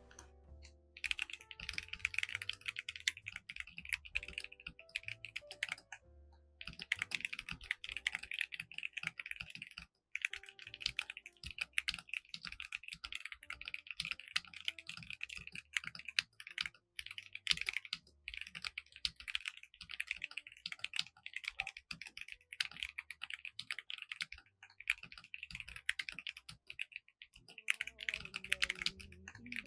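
Continuous fast typing on a Keychron V10 Max mechanical keyboard with tactile Gateron Jupiter Banana switches and OSA double-shot PBT keycaps: a dense run of keystroke clicks, broken by a few brief pauses.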